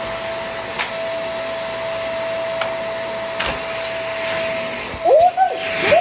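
Upright bagless vacuum cleaner running steadily over a tile floor, its motor whining at one even pitch with a few light clicks. Near the end several short, loud squeals rising and falling in pitch sound over it.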